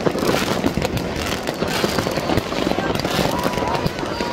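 Many fireworks and firecrackers going off at once in a dense, continuous crackle of bangs, with a whistling firework about three seconds in.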